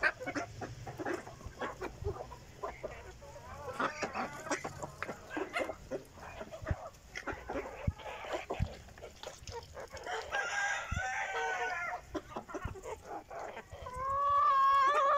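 Fayoumi chickens clucking and calling in short notes throughout. A rooster crows once about ten seconds in and again, loudest, near the end.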